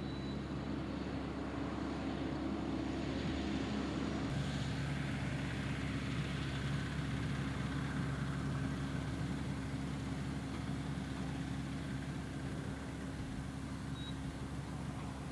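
A vehicle engine running steadily, its note shifting about four seconds in.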